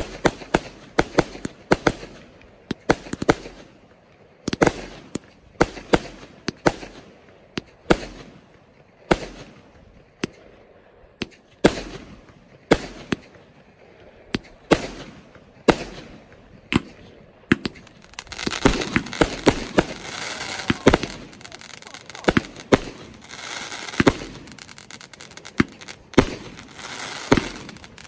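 Fireworks going off: a long run of sharp bangs, about one or two a second. From about two-thirds of the way in, a dense crackling fills in under the bangs.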